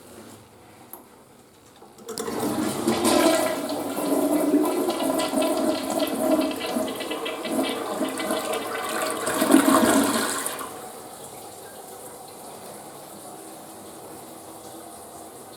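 Western-style toilet flushing: water rushes loudly from about two seconds in for roughly eight seconds, then drops to a steady, quieter hiss as the tank refills.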